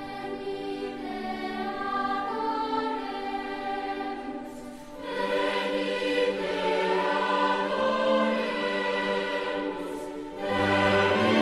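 Background music with a choir singing long held notes, the phrase dropping away briefly about five seconds in and again near the end.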